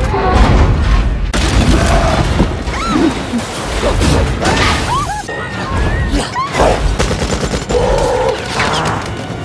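Action-film fight sound mix: repeated heavy booms and crashes over a deep rumble, with short rising-and-falling cries from a fleeing crowd.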